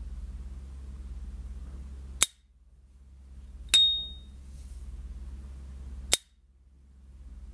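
Gold S.T. Dupont lighter lid worked by hand: it snaps shut with a sharp metallic click about two seconds in, opens about a second and a half later with the brand's bright ringing 'cling' ping, and snaps shut again near the end.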